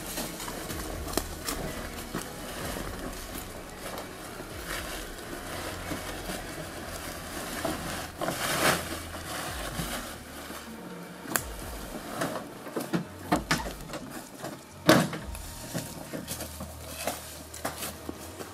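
Tarp rustling and handling noises with scattered knocks and thuds as a heavy tarp-wrapped load is lifted into the metal bed of a Nissan pickup truck. A cluster of knocks comes about halfway through, and the loudest single knock about fifteen seconds in.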